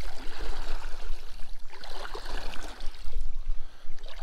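River current rippling and gurgling around a drifting kayak, with a steady low rumble underneath.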